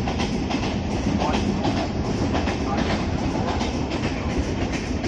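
Konkan Railway passenger train rolling along the track: a steady rumble with repeated clicks and clatter of the wheels over the rails.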